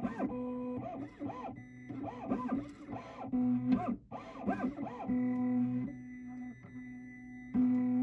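Condor XC-Mini key-cutting machine's stepper motors running through its self-check and key decode: a steady motor hum broken by repeated whines that rise and fall in pitch as the carriage moves, with short pauses between moves.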